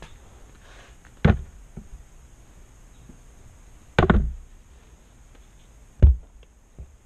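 Three dull thumps, about a second in, about four seconds in (a quick double knock, the loudest) and about six seconds in, with a faint tap near the end.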